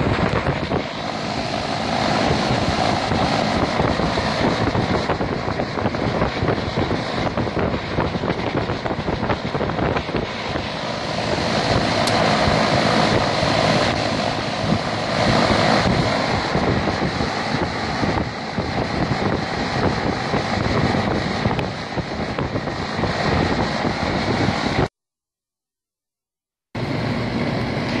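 Air-conditioning condenser fan running, a steady rush of air blowing up through the top grille with wind buffeting the microphone. The sound cuts out completely for about two seconds near the end, then the steady rush returns.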